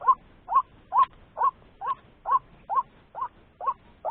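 White-breasted waterhen's call: a short 'kru-ak' note repeated evenly, a little over two a second.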